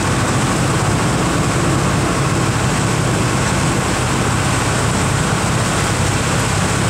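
Boat engine running steadily under way: a constant low drone with an even hiss over it.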